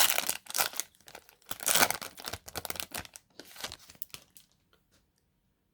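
Foil wrapper of a baseball card pack being torn open and crinkled in the hands, with scratchy handling noise that dies away about four and a half seconds in.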